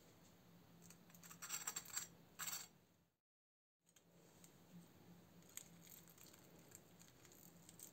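Near silence broken by a few brief clinks and rattles in the first three seconds, then a short dead-silent gap and faint room tone.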